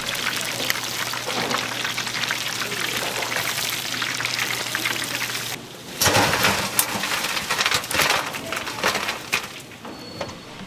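Food sizzling in hot frying oil, a steady crackling hiss. After a break about six seconds in, sharp knocks and clatter come over a lighter sizzle.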